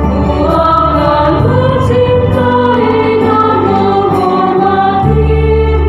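Mixed church choir of men and women singing a hymn together, several voice parts at once.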